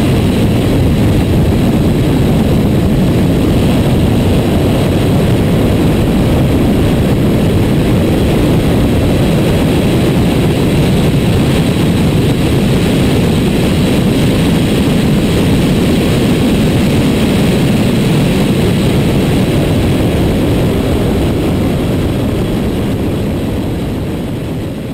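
BMW 135i's turbocharged inline-six running under load at track speed, with wind and tyre noise, held to moderate revs by short-shifting because of overheating. Steady and loud, fading out near the end.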